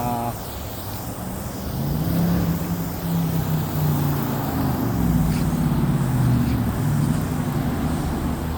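An engine running steadily, its pitch wavering a little up and down.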